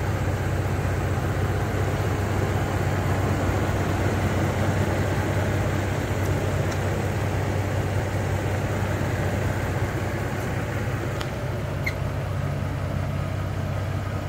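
2019 Ford F-150 Raptor's 3.5-litre twin-turbo EcoBoost V6 idling steadily as it warms up after a cold start, with a constant low hum.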